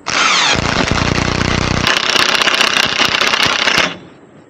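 A loud motor running with a rattle, starting abruptly and cutting off suddenly after about four seconds.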